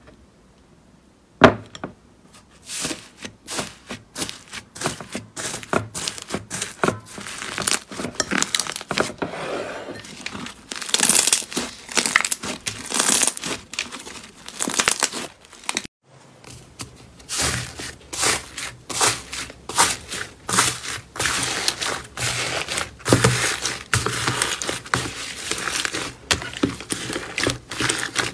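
Iceberg slime handled by fingers, its dried crust crackling and crinkling in dense rapid pops as it is poked and stretched, after a single sharp click about a second and a half in. After a short break near the middle, more slime is squeezed and stretched with the same crackling and some low squelching.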